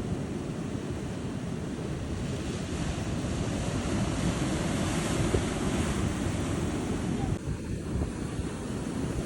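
Ocean waves breaking and washing on the shore, a steady rushing that swells about halfway through, with wind buffeting the microphone.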